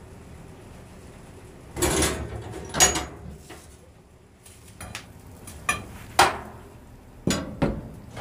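A metal firebox door on a wood-fired maple syrup evaporator is opened with a clank, followed by a run of sharp metal clanks and scrapes as a steel poker rakes and knocks the coals in the firebox. A low steady rumble from the fire comes before the first clank.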